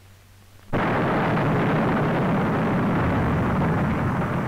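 A big gun proof-fired with an overcharge: a sudden blast about three-quarters of a second in, then a long, loud roar that begins to fade near the end.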